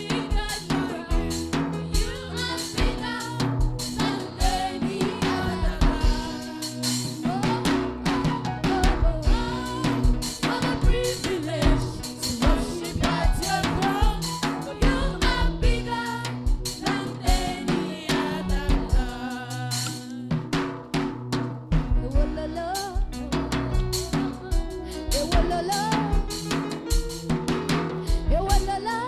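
Live gospel worship band music driven by a drum kit, with snare and bass drum hits to the fore over a steady beat.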